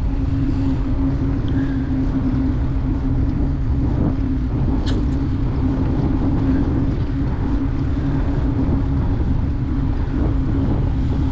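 Fat-tyre bicycle rolling steadily along a paved path: a constant tyre hum and rumble, with wind buffeting the microphone. One sharp click about five seconds in.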